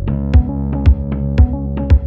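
Electronic background music with a steady drum-machine beat, about two beats a second, over held synth chords.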